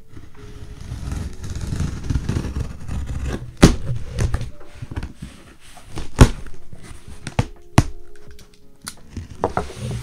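Cardboard shipping box being opened by hand: the packing tape slit and the flaps pulled back, with scraping and rubbing of cardboard and three sharp cracks as the tape and flaps give way.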